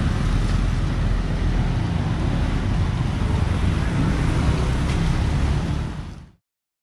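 Wind buffeting the microphone, a low uneven rumble over outdoor street background noise, fading out to silence near the end.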